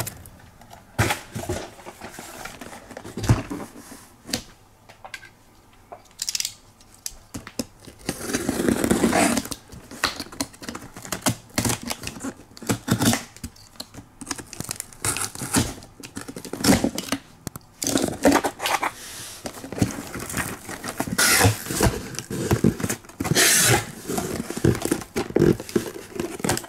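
A cardboard case of Hot Wheels cars being opened by hand: tearing, crinkling and scraping of tape and cardboard, with scattered knocks and rustles, a longer tearing stretch about eight seconds in and louder bursts near the end.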